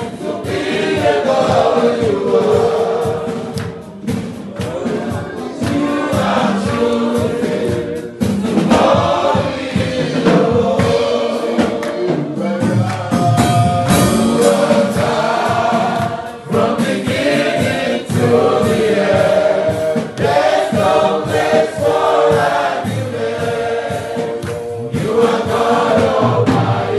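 Church congregation singing a gospel worship song together, many voices in sustained phrases.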